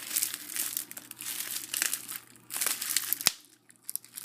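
Crinkling of the cellophane wrap on a new deck of playing cards as fingers work at peeling it open, with one sharp click about three seconds in and a short lull after it.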